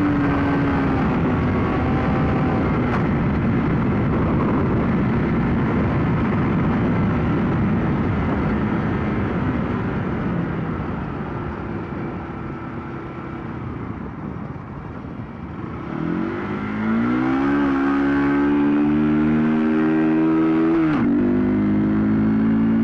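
2007 Honda CBR125R's single-cylinder engine running under wind rush while riding. It drops away and quietens past the middle as the bike eases off, then revs rise in pitch, break briefly near the end as if for a gear change, and settle into a steady tone.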